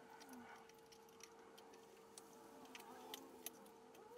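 Near silence: a few faint small clicks as fingers handle and plug the wiring connectors onto the back of the side-mirror glass, over a steady faint hum.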